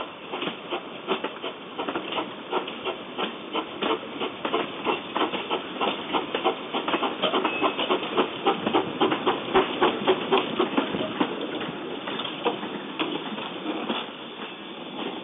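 Small steam locomotive hissing steam as it runs, with a rapid, irregular clatter of clicks over the hiss, a little louder in the middle.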